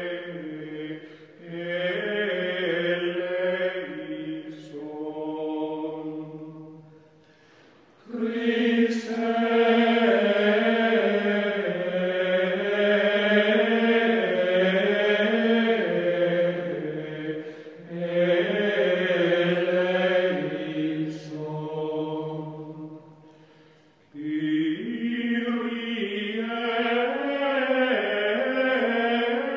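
Slow vocal chant on the soundtrack: long held notes moving up and down in steps, broken twice by short pauses.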